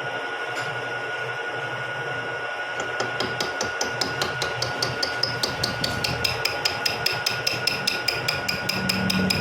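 Vertical milling machine running with a steady hum; about three seconds in, a regular rapid ticking starts, about four or five sharp clicks a second, as the cutter cuts into the spur gear blank.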